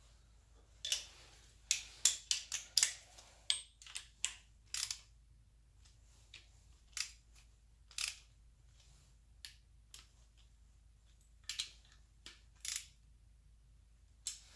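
Hand ratchet and socket extension on the engine's water pump bolts: irregular sharp metal clicks and clinks as the bolts are run in hand-tight.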